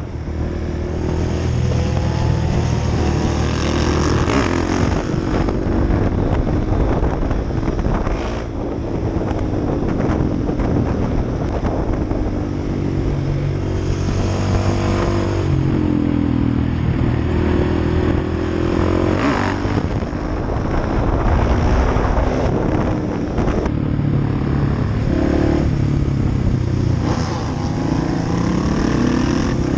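Motorcycle engine under way, its pitch rising and falling several times as the rider accelerates, shifts and backs off, over a steady rush of wind noise.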